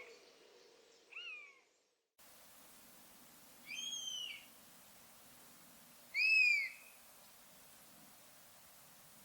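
Common buzzard giving its mewing calls: a short falling mew about a second in, then two longer, downward-slurred mews a couple of seconds apart, the last the loudest. A moment of dead silence comes between the first call and the other two.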